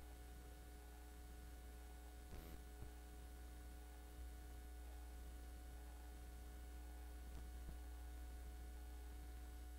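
Near silence: a faint, steady low electrical hum of the recording's room tone, with one faint brief sound about two and a half seconds in.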